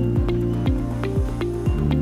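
Upbeat corporate-style background music: a steady kick drum about twice a second under held synth chords and short plucked notes.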